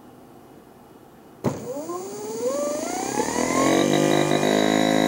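A 12 V brushless DC refrigerator compressor (HB075Z12) starting up about a second and a half in. It starts suddenly, then its whine rises in pitch for about two seconds and settles into a steady running hum.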